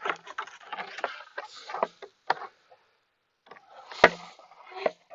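Lawn mower covers and parts being handled and pulled off: a run of clattering knocks and scraping rustles, a pause, then a sharp knock with a thud about four seconds in, the loudest sound.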